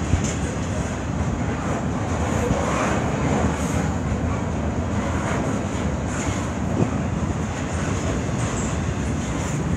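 CN intermodal freight train's container well cars rolling past, a steady noise of steel wheels running on the rails.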